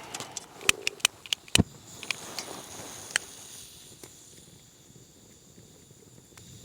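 Several light clicks and knocks in the first three seconds, as of camp coffee gear being handled, then faint quiet outdoor background.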